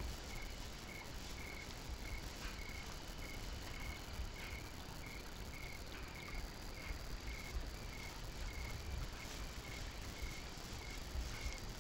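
An insect chirping in an even rhythm, about two to three short chirps a second, over a faint low rumble.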